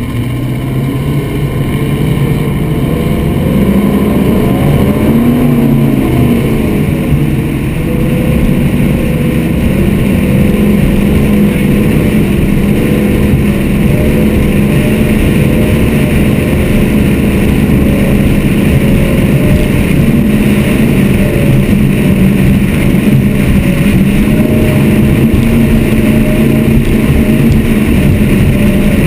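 Mercury Marine engines of a Motion Powerboats 43GT catamaran running at speed over open ocean, a steady engine drone over rushing wind and water noise. The engine note wavers up and down briefly a few seconds in, and the overall loudness builds over the first few seconds before holding steady.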